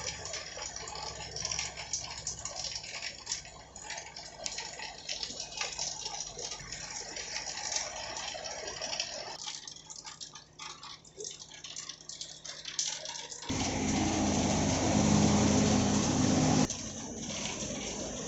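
Heavy rain falling and dripping, a steady hiss full of small ticks. From about thirteen seconds in, a motor vehicle's engine runs louder for about three seconds, then cuts off.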